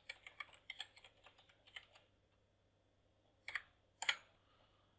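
Typing on a computer keyboard: a quick run of keystrokes for about two seconds, then two louder single key presses about three and a half and four seconds in.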